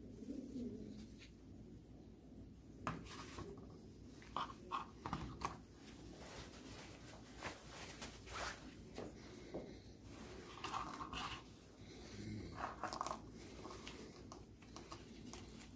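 Faint, irregular clicks and short scrapes of plastic parts being handled with work gloves: an airbag clock spring and steering-column switch assembly taken apart by hand.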